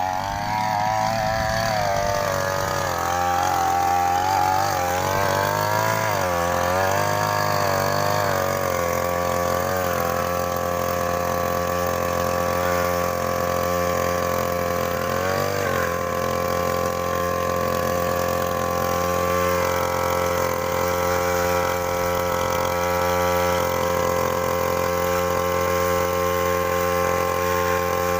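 Small petrol engine of a grass-cutting machine running, its speed wavering up and down for roughly the first half, then holding steady.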